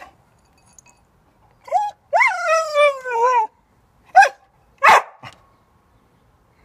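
Dog whining impatiently while being made to wait for its food: a short whine, then a long whine sliding down in pitch, followed by two short barks about four and five seconds in.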